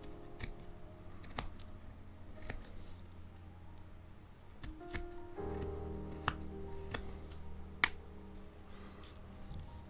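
Japanese carving knife (kogatana) slicing paulownia wood in short, crisp cuts at an uneven pace, about a dozen sharp snicks with the loudest near the end. Soft background music plays underneath.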